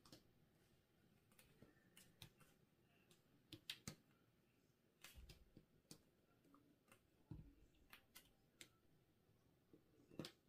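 Near silence, broken by a few scattered faint clicks and taps.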